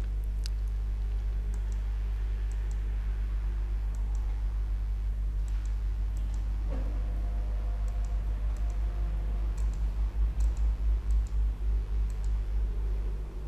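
Scattered single computer-mouse clicks over a steady low hum. The hum pulses unevenly in the last few seconds.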